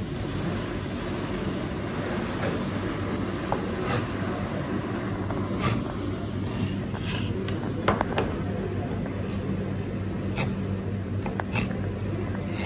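Kitchen knife chopping cobia into chunks on a plastic cutting board, the blade knocking on the board every second or two, over a steady low mechanical hum.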